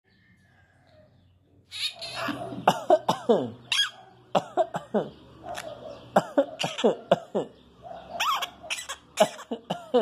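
Pet parakeet imitating a human cough: after about two seconds of quiet, a long run of short, harsh coughs, many of them dropping in pitch.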